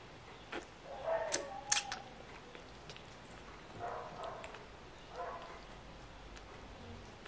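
Five-day-old toy poodle puppy giving a few short, faint squeaks and whimpers during bottle feeding, with two sharp clicks about a second and a half in.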